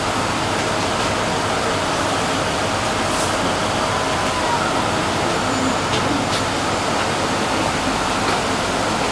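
Running noise inside a CSR Qingdao Sifang SFM04 subway car as the train pulls into a station and slows: a steady rumble and hiss. A faint steady whine fades out about halfway through.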